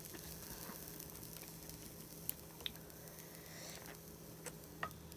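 Quiet, light handling sounds as green-lipped mussel shells and a spoon are moved about in a glass bowl and a bowl of sauce, with a few small sharp clicks in the second half, over a low steady hum.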